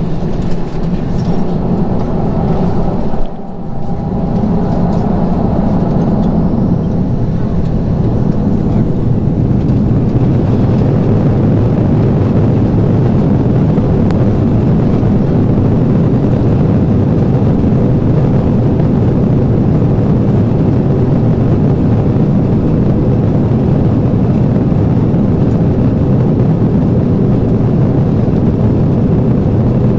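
Airbus A321 cabin noise: a loud, steady roar of the jet engines and rushing air, heard from inside the passenger cabin. The sound drops out briefly about three seconds in.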